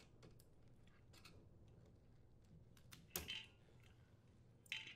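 Faint handling of a dishwasher wire harness being unclipped and pulled free: two short plastic clicks, one about three seconds in and one near the end, over near silence.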